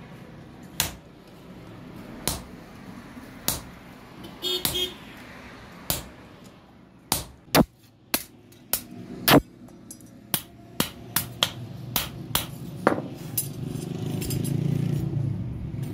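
Hand-hammer blows on a red-hot steel bar held with tongs on an iron anvil block, forging it flat into a sickle blade: about twenty sharp metal-on-metal strikes at an uneven pace, coming faster after about seven seconds. A low hum swells near the end.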